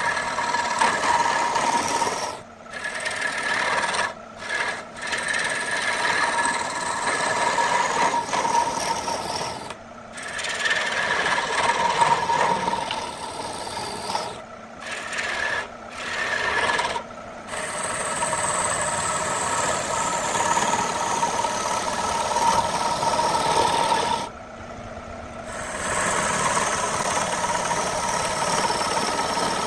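A hand-held turning tool cutting a spinning wooden bowl blank on a lathe: a steady scraping, rasping cut with a ringing tone in it. The cut breaks off briefly several times, once for about a second near the end.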